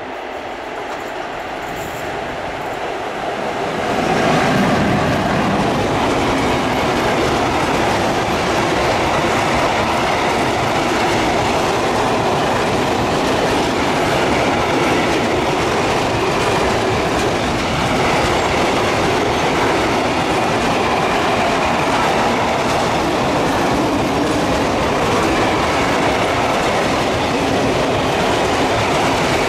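Freight train of open goods wagons, hauled by an electric locomotive, rolling past close by. The noise swells over the first four seconds as the train reaches the spot, then holds as a steady noise of wagon wheels running on the rails.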